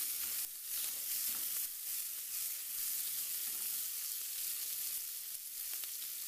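Diced bacon sizzling steadily as it fries in a frying pan, with a spatula stirring it now and then.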